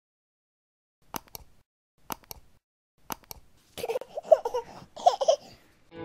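Three mouse-click sound effects about a second apart, each a quick double click, followed by a high childlike voice babbling and laughing in two short bursts.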